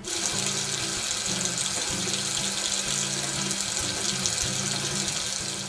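Water pouring hard into a bathtub, a steady rushing hiss that starts suddenly, with music playing underneath.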